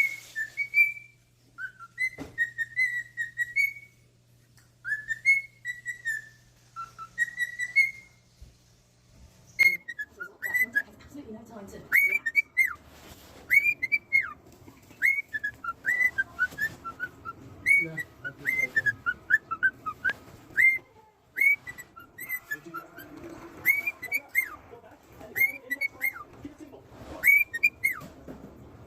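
Cockatiel whistling a tune: clear, high whistled notes that slide up and down. The first half comes in short phrases with pauses; from about ten seconds in the notes come quicker, as a run of short rising-and-falling whistles over a low background rustle.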